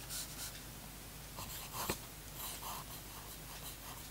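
A TWSBI Go fountain pen's stainless-steel nib writing on paper: short, quiet scratches as each stroke is made, with one sharp tap a little under two seconds in.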